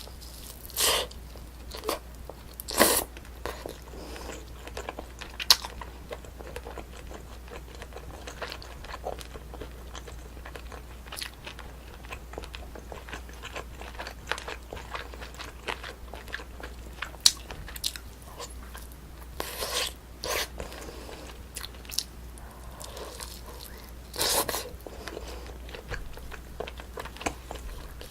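Close-miked eating of Korean braised spicy chicken (dak-bokkeum-tang): biting and chewing, with many small sharp clicks and a few louder short bites about a second in, at three seconds, and twice near twenty seconds and again near twenty-four.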